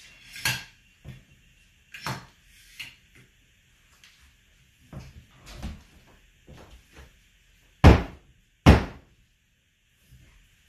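Pneumatic hardwood flooring nailer struck with a mallet, driving fasteners into the floorboards: a run of sharp bangs with smaller knocks between, the two loudest about a second apart near the end.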